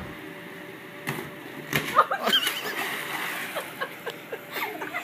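A child landing in the water at the bottom of an inflatable water slide, with a loud splash about two seconds in, then water sloshing and the family laughing.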